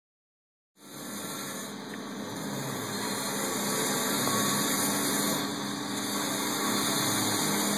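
Power tool grinding out old mortar from brick joints for repointing: a steady machine drone that starts just under a second in.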